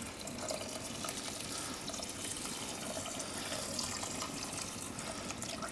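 Boiled water pouring in a steady stream from a stainless-steel kettle into a pot of dry bulgur.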